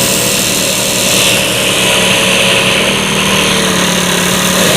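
Supersonic 6150 tailoring sewing machine running steadily at high speed with a constant hum, growing brighter about a second in.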